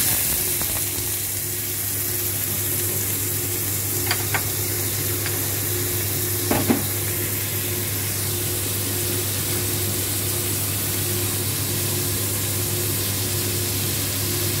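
Chopped white onion sizzling in hot oil in a metal frying pan: a steady hiss. A few light clicks sound about four seconds and six and a half seconds in, over a steady low hum.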